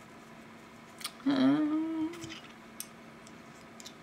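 A light click, then a woman's short closed-mouth hum about a second long, rising slightly in pitch and then holding, followed by a few faint clicks from handling a small makeup tin.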